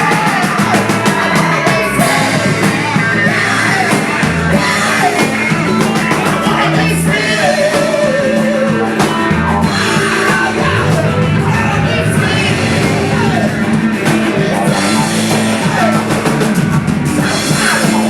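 Live band playing a loud roots-rock song, with drums, bass and guitar under a singing voice.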